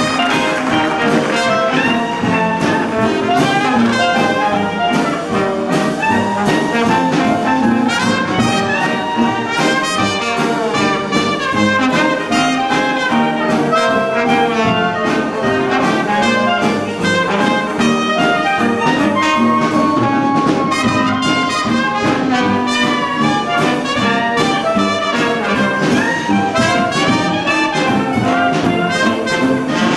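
Dixieland jazz band playing live: trombone, trumpet and clarinet weaving melody lines together over a banjo's steady strummed beat.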